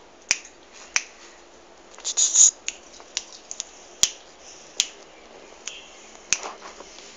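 Sharp, scattered clicks, roughly one a second, with a short hissing burst about two seconds in.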